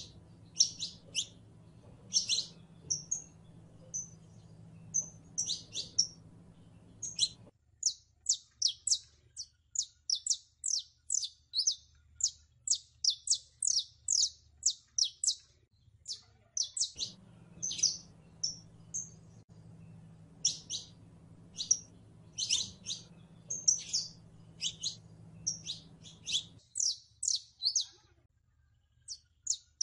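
Saffron finch singing: a long series of short, high chirping notes, loose phrases at first, then a fast, even run of notes through the middle.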